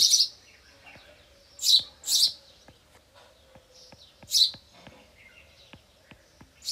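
A bird chirping in the background: loud, short, high chirps every couple of seconds, some in quick pairs. Between them come faint clicks of a stylus tapping on the tablet screen while writing.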